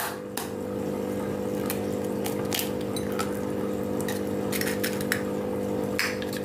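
Raw eggs being tapped against a glass bowl and broken open: a series of sharp clicks and taps, with a cluster of them just before five seconds in. A steady low hum runs underneath.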